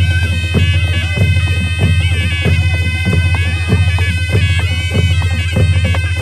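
Nepali panche baja band playing: a sanai reed pipe carries a wavering melody over a steady drum beat, a little under two strokes a second.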